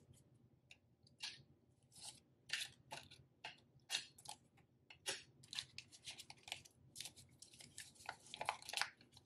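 Paper banknotes being handled and flicked through by hand: faint, irregular crisp rustles, coming thicker in the second half as the bills are counted.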